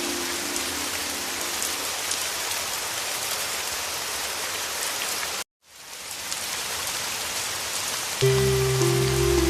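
Heavy rain falling steadily, a dense even hiss. Soft music with low held tones fades out in the first two seconds and comes back, a little louder, near the end. About five and a half seconds in, everything cuts out for a split second and the rain fades back in.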